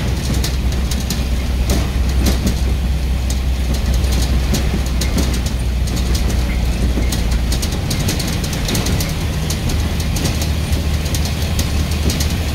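Scania N94UB single-decker bus's diesel engine running under way: a steady low drone with frequent rattling clicks. The engine note changes about eight seconds in.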